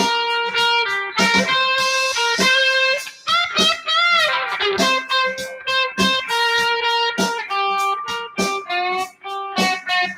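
Electric guitar playing a single-note lead line of quick picked notes, with a note bent up and back down about four seconds in.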